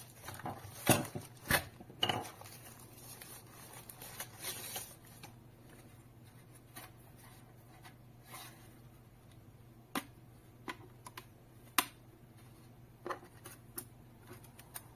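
Handling noise of a plastic Wi-Fi router and its accessories: a burst of rustling tissue paper and several knocks and clicks of plastic parts being picked up and set down, then a few single sharp clicks spaced seconds apart as the router's folding antennas are swung up into place.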